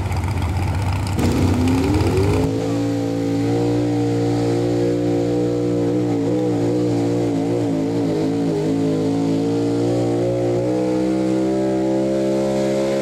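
Modified gas pickup truck engine running hard near full throttle while pulling a sled. It is loud and close for the first couple of seconds, then holds a steady high pitch that wavers in the middle and drops slightly near the end.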